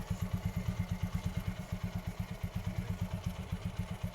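TVS Apache RTR 4V single-cylinder motorcycle engine idling with a steady, even beat of about nine pulses a second. It is running smoothly after its head valve guides and cam bearing were replaced, with the earlier bad noise gone.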